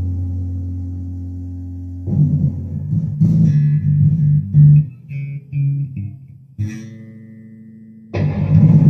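Electric bass guitar: a held low note fading away, then a run of short plucked notes, a second held note, and a louder, busier passage starting near the end.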